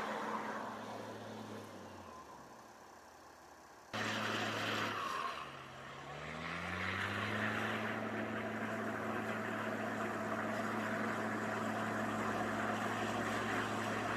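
Amphibious Combat Vehicle swimming: a steady engine hum over the hiss of water churned up at its stern. The sound fades off, then cuts back in suddenly about four seconds in. Soon after, the engine note climbs for a second or so and then holds steady.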